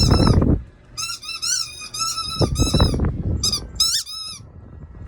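Dog whining: a series of high-pitched, wavering whines, several in a row from about a second in. Before them comes a short loud rustling noise.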